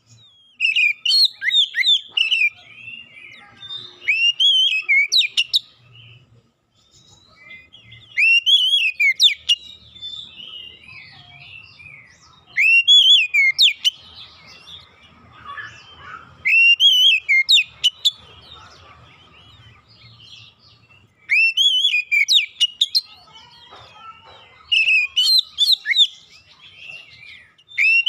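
Oriental magpie-robin (kacer) singing loudly in repeated phrases of sharp, rising and falling whistled notes, with a short pause between phrases.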